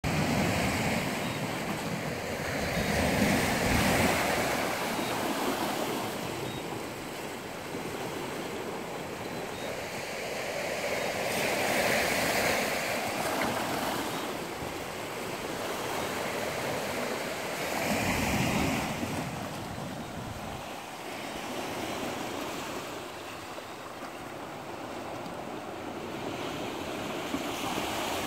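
Sea waves breaking and washing over rocks: a steady rushing wash that swells with each surge and eases between them, every several seconds, some surges carrying a deep low rumble.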